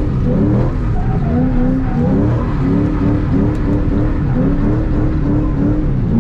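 A 2005–2010 Ford Mustang GT's 4.6-litre three-valve V8, heard from inside the cabin, revving up and down repeatedly while the car is drifted on wet pavement, its pitch climbing and dropping about once a second.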